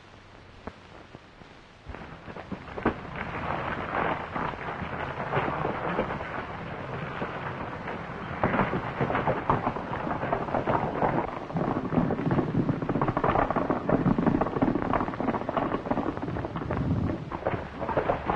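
Horses' hooves galloping on dirt: a dense, continuous run of hoofbeats that starts about two seconds in.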